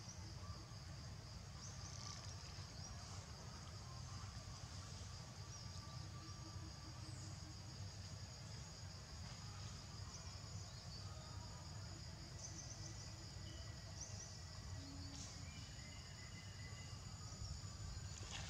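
Faint, steady high-pitched insect chorus with a low rumble underneath.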